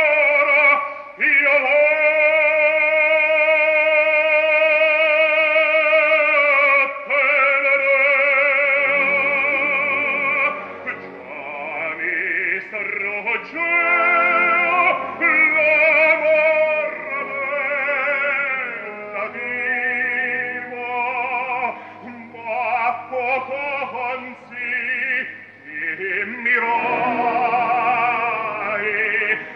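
Operatic baritone singing in Italian with orchestra. A long held note with wide vibrato comes about a second in, then shorter phrases broken by brief pauses.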